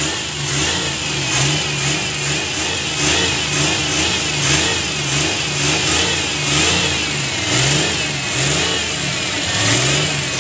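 Suzuki F6A 12-valve three-cylinder engine running, its speed rising and falling in gentle repeated revs, with a clogged carburettor fuel return line just cleared.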